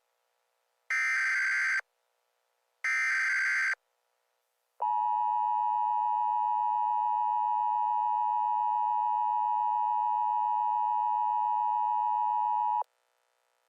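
Emergency Alert System SAME header: two short screechy digital data bursts about a second apart, then the EAS attention signal, a steady two-tone beep that holds for about eight seconds and cuts off sharply.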